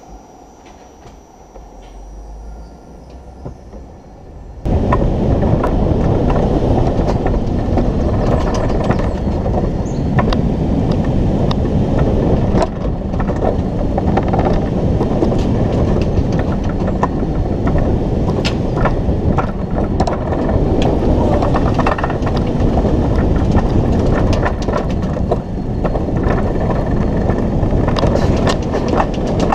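Alpine coaster sled running down its steel tube track: a loud, steady rolling rattle of wheels on the rails, with scattered clicks. It starts suddenly about four and a half seconds in, after a quieter stretch.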